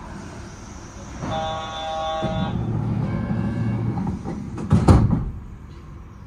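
Yurikamome train at the platform: a held electronic door-warning tone, a low hum, then the train's sliding doors thud shut about five seconds in.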